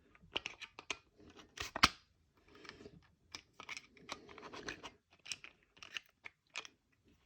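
Faint handling of small 3D-printed plastic grenade parts: scattered light clicks, taps and short scrapes, the sharpest pair of clicks about two seconds in.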